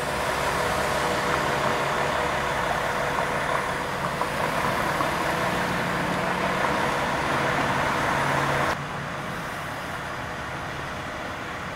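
Steady rumble of vehicle engines and traffic: fire engines idling and cars driving past close by. The level drops about nine seconds in.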